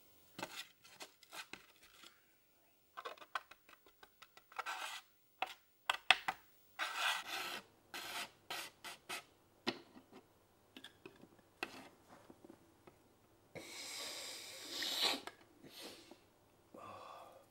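A card scraped in many short strokes across a flat hard surface, then a long sharp sniff through the nose about two-thirds of the way through.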